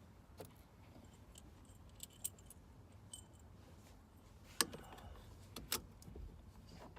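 Small metal parts clinking and clicking, like keys or hardware being handled during the steering wheel hub install, with two sharper clicks in the second half.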